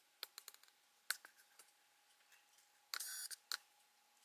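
Quiet room with a few faint clicks and taps, a brief rustle about three seconds in, and a faint steady hum underneath: handling noise as the camera is moved.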